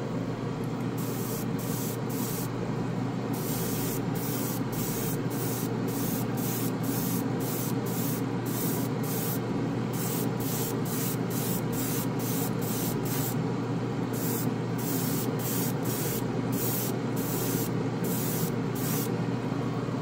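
An airbrush spraying paint in dozens of short hissing bursts, about one or two a second, as the trigger is pulled again and again. Underneath is the steady whoosh of a waterfall spray booth's exhaust fan and running water curtain.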